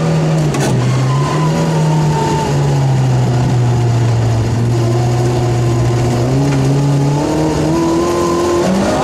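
Rally car engine heard from inside the cabin. Its pitch dips about a second in and holds steady and lower through the middle, then climbs as the car accelerates near the end.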